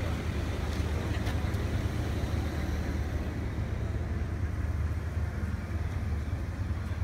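Steady low rumble of car engines running, with a few faint clicks near the start.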